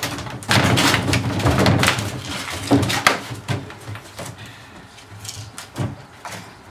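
Puppies scrambling in and against a large plastic trash barrel lying on its side on concrete, with a busy run of knocks, bumps and scrapes on the hollow plastic. The clatter is loudest in the first half and thins out to a few separate knocks near the end.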